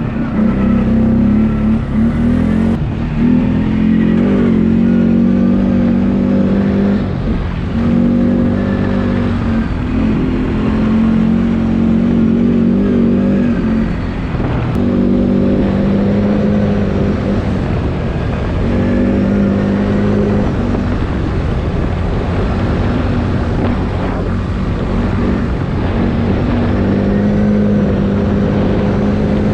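Quad bike (ATV) engine running under throttle while being ridden, its pitch held fairly steady and dropping briefly every few seconds as the throttle is eased.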